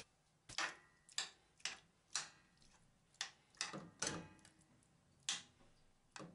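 Metal spoon tapping and clinking against a stone-coated non-stick frying pan while spreading raw chicken pieces, about nine separate irregular taps.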